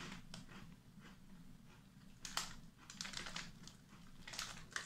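Faint crunching as a crisp hazelnut spelt biscuit is chewed, with a clear plastic bag crinkling in the hand in short scattered clicks, thickest near the end.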